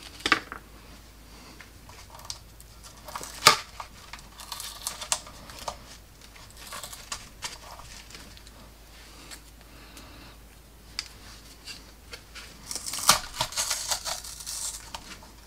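Masking tape being peeled off a painted plastic scale model by hand: light crinkling and rustling with scattered small clicks and taps, one sharp click about three and a half seconds in, and a busier stretch of crinkling near the end.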